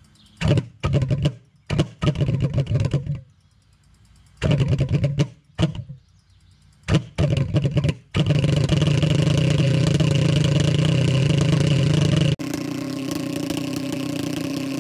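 Small propane-fuelled pulse jet engine being started: it sputters and pops in three ragged fits, then catches about eight seconds in and runs with a loud, steady drone.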